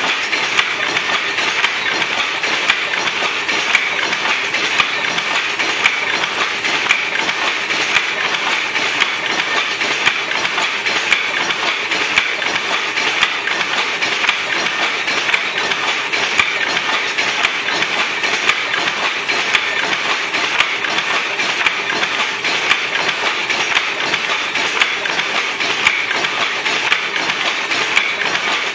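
Power loom running, its wooden sley and shuttle mechanism making a loud, steady, dense clatter of repeated sharp knocks.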